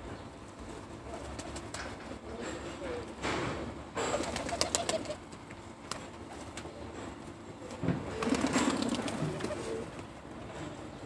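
A flock of Ödemiş süslüsü fancy pigeons cooing, loudest about eight seconds in, with scattered sharp taps and flutters from the birds pecking feed and moving on the paving stones.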